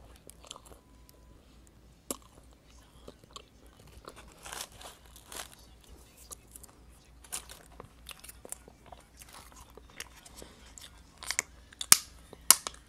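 Close-up chewing of crusty bread, with crisp crunches and wet mouth clicks. A few sharper, louder clicks come near the end.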